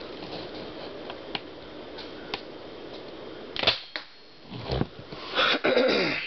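Nerf sniper blaster firing: a sharp snap about three and a half seconds in, with lighter clicks before it and a smaller snap about a second later, then a brief rustling burst near the end.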